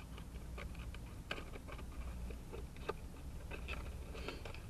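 Small cardboard fast-food package being handled and opened by hand: irregular soft crinkles, scrapes and clicks, two of them a little sharper, over a low steady hum.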